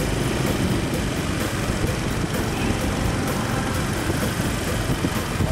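Steady engine and road noise of a moving vehicle: an even low rumble with no breaks.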